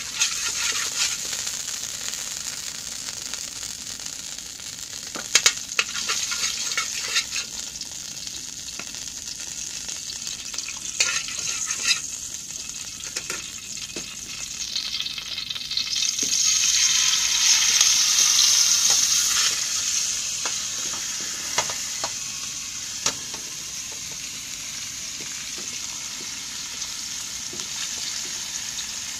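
Fat sizzling in a hot metal pan, with a few sharp pops; the sizzle swells louder for several seconds past the middle.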